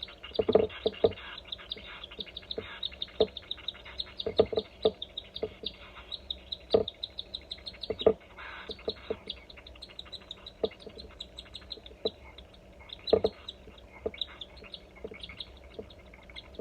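Baby cockatiel's food-begging calls: a fast, uneven run of short chirps, a few louder than the rest, the sign of a hungry chick at hand-feeding time.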